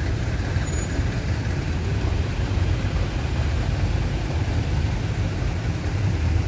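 Road traffic noise: a steady low rumble of vehicles crawling in jammed traffic.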